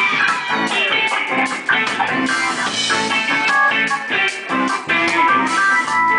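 Live reggae band playing an instrumental passage: electric guitar, bass guitar and drums over a steady beat, with no singing.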